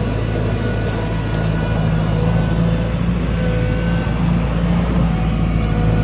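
Mustang 2109 skid steer loader's diesel engine running steadily as the machine drives and turns. Its engine note steps up a little about a second in and holds there.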